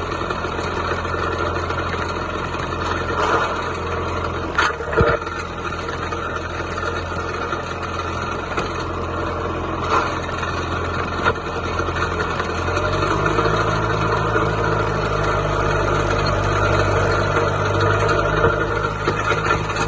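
John Deere 2130 tractor's three-cylinder diesel engine running steadily, with a couple of knocks about four and a half seconds in. The engine speed steps up about thirteen seconds in and holds there.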